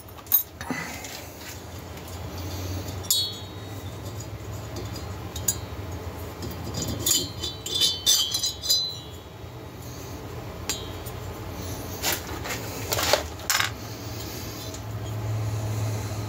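Metal clinks, rattles and a few sharp knocks as a Husqvarna 372XP aluminium chainsaw cylinder is worked loose and lifted off the studs of a lathe fixture, with a low steady hum underneath.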